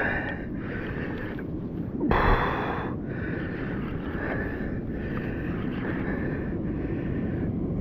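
Steady wind noise on the microphone and water rushing along a fishing kayak's hull as a hooked fish tows it, with one brief louder burst about two seconds in.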